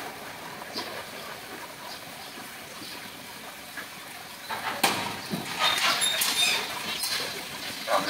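Common hill myna giving a quick string of sharp clicks and short, high whistling chatter starting about five seconds in, with a louder call beginning right at the end.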